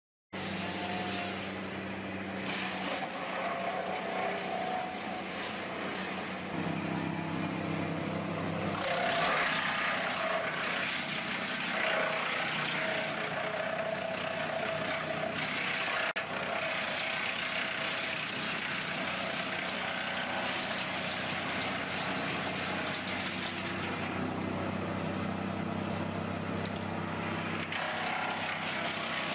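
Motor vehicle engines running, a steady low hum that shifts in pitch a few times, with general traffic noise.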